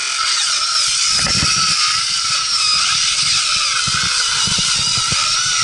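Small handheld power tool whining as it works into lake ice, its high pitch wavering as the load changes, with a few dull knocks against the ice about a second in and again near the end.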